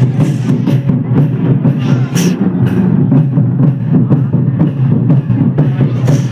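Loud music with a steady percussive beat, about two drum strokes a second.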